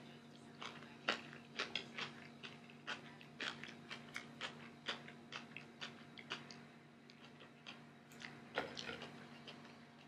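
Close-up eating sounds: a person chewing mouthfuls of instant ramen noodles, with irregular short clicks of wooden chopsticks against the pot. A faint steady hum runs underneath.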